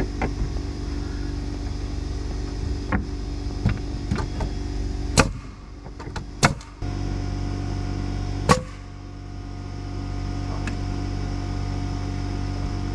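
An engine running steadily, with a handful of sharp knocks or taps over it, the loudest about five, six and a half and eight and a half seconds in.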